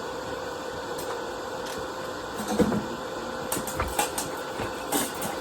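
Steady machine hum with a thin constant tone, and a scattering of knocks and clicks from about halfway through.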